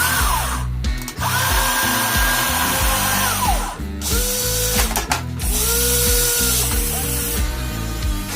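Small electric gear motors of remote-control toy vehicles whining in short runs of a second or two, several times, rising in pitch as each starts and dropping as each stops, over background music.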